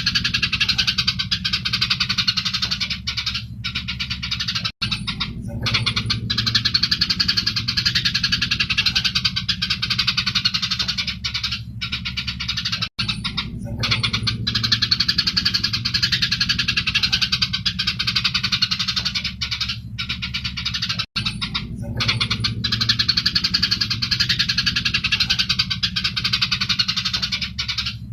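Eurasian tree sparrows chattering in a dense, continuous stream of fast chirps in fighting song, over a steady low hum. The chirping breaks off briefly every eight seconds or so.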